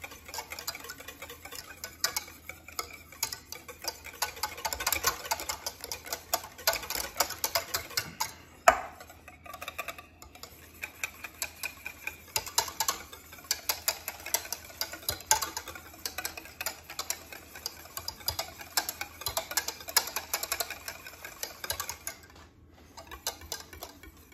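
Wire balloon whisk beating mayonnaise by hand in a stainless steel saucepan: a fast, steady ticking of the wires against the pan, as oil is whisked into the thickening egg-yolk emulsion. One sharp clack comes about nine seconds in, and there are short pauses around ten and twenty-two seconds.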